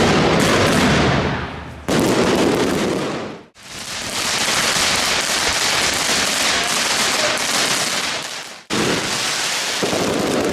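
Fireworks crackling and banging in a dense, continuous rattle. It breaks off abruptly about two, three and a half and nine seconds in, where one recording gives way to the next.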